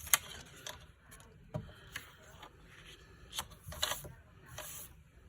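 Scattered light clicks and taps, about seven in all, the sharpest right at the start: a stamp and cardstock being handled and positioned in a Stamparatus stamping platform.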